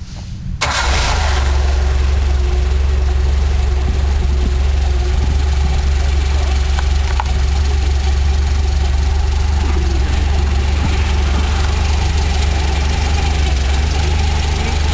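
Automobile engine converted for aviation, fitted to a microlight powered hang glider trike, running steadily at a constant speed. The sound comes in suddenly about half a second in.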